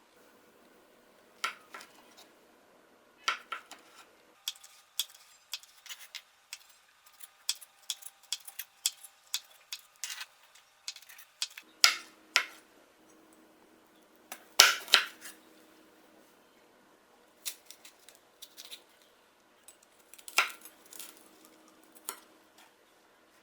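Kitchen utensils and dishes clinking and tapping at irregular intervals during food preparation, with the loudest knocks about twelve and fifteen seconds in.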